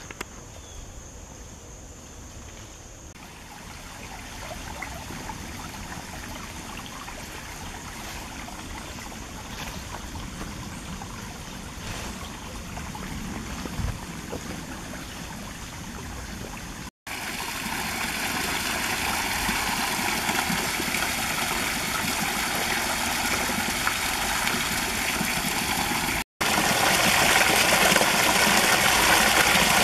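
Creek water trickling and babbling over a low, shallow streambed, growing louder and fuller as the stream gets closer. It jumps louder twice at sudden cuts.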